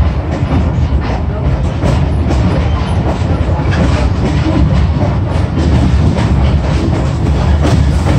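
Passenger train rolling along, heard from aboard a coach: a loud, steady low rumble with irregular clicks and clatter from the wheels on the rails.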